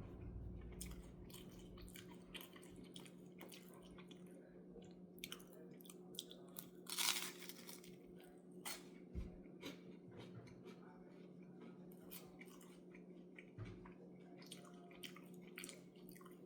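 A person chewing toast: faint, scattered crunches and mouth clicks, with one louder crunch about seven seconds in, over a steady low hum.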